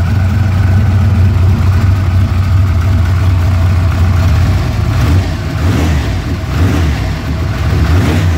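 Turbocharged car engine with FiTech fuel injection running on E85, idling steadily; about five seconds in its note grows less even and slightly quieter.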